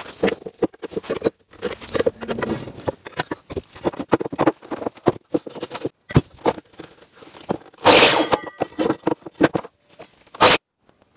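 Sped-up clatter of timber being handled and positioned on a mitre saw: a quick, irregular run of knocks and clicks of wood on the saw's table and fence, with a louder noisy burst about eight seconds in and a sharp knock shortly after.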